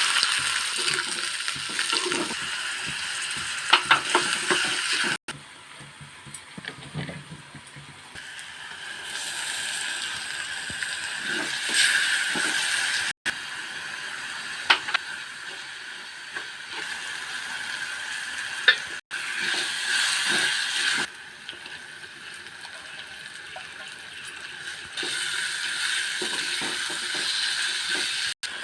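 Kitchen sounds while prawns are prepared: a steady hiss with scattered clicks and scrapes of utensils, broken by several sudden cuts between clips.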